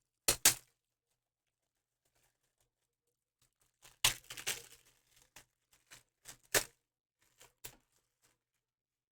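Trading-card packs and cards being handled: short, sharp crinkling and tearing rustles of a foil pack wrapper and card stock, two right at the start, then a cluster about four seconds in followed by a string of smaller clicks and rustles.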